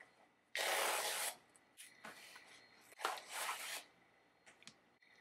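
Paper and plastic packaging being handled, with two sharp rustling scrapes about half a second in and about three seconds in, and a few light clicks between them.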